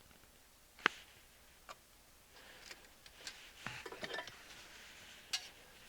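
Scattered sharp clicks and light taps of small hand tools and component leads being handled on a workbench while transistors are fitted into a circuit board: single clicks about a second in and again near the end, with a brief cluster of small taps and rustles in between.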